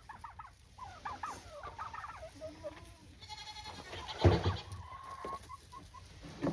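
Hens clucking and chattering in short, quick calls. About four seconds in, a single louder, longer call stands out.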